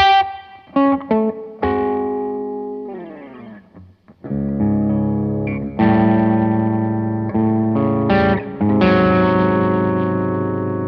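Electric guitar played through a Blackstar JJN20 MkII amp: quick picked notes for the first few seconds, then lower chords strummed several times and left to ring, with some overdrive on the tone.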